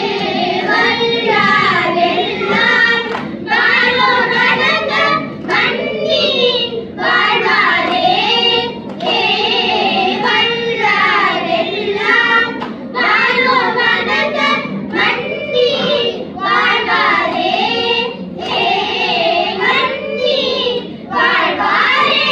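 A group of children singing a Tamil devotional hymn together in unison, in continuous melodic phrases.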